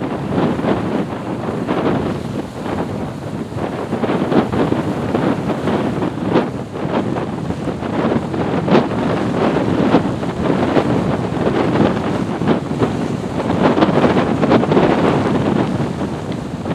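Wind blowing hard across the microphone: a continuous rushing buffet with many short, irregular gusts.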